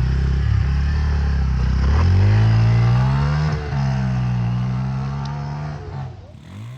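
Bajaj Pulsar N160 single-cylinder motorcycle accelerating past at speed. The engine note rises about two seconds in, holds, then fades as the bike moves away.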